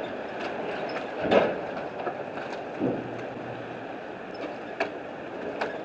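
Strong wind blowing steadily across the microphone, broken by a few short knocks and rustles.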